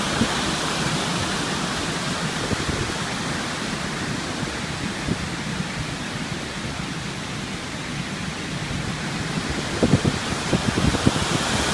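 River waterfall rushing steadily. A few short, low bumps come near the end.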